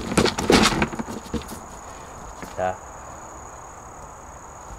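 Hard plastic clatter and knocks in the first second as the hinged lid of a plastic grain bin is handled and shut, then a short call about halfway through. A steady high-pitched insect drone runs underneath.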